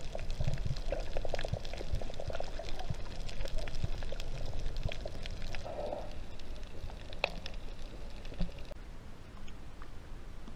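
Water recorded underwater over a coral reef: muffled gurgling and sloshing with many scattered sharp clicks and crackles.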